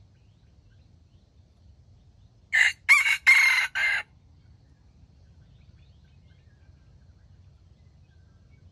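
A red junglefowl rooster crows once, about two and a half seconds in: a short crow of about a second and a half, in four quick parts, that ends abruptly.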